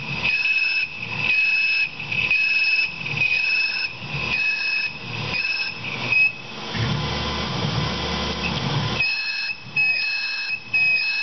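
A half-inch cobalt drill squealing as it cuts into 303 stainless steel spinning in the Tormach PCNC 1100's spindle. The high, steady squeal comes in short repeated stretches about a second apart, broken as the peck-drilling cycle pulls the drill back. About six seconds in, the squeal gives way to a hissing, rushing noise for a few seconds, then resumes.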